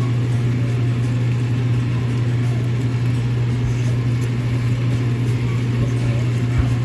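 A steady low hum at an even level throughout.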